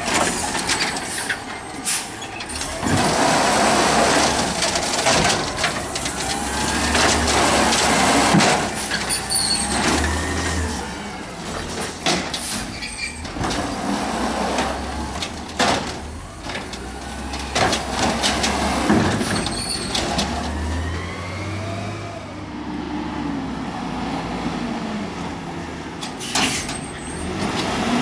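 Peterbilt 320 automated side-loader garbage truck at work: the diesel engine revs up and down as the hydraulic arm lifts and dumps carts, with sharp knocks of carts hitting the hopper and hisses of the air brakes.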